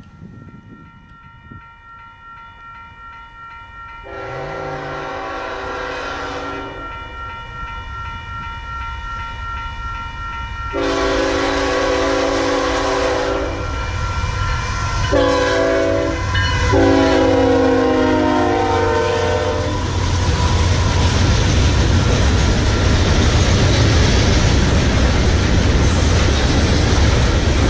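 Diesel freight locomotive's multi-chime air horn blowing the grade-crossing signal: two long blasts, a short one and a long one. In the last several seconds the rumble of the locomotives passing close grows loud and steady.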